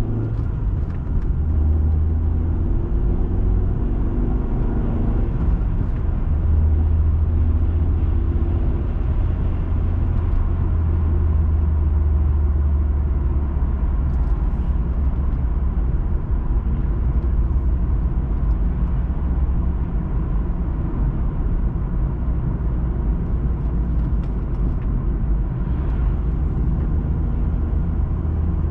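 Car driving at a steady pace, heard from inside the cabin: a continuous low rumble of engine and tyre road noise.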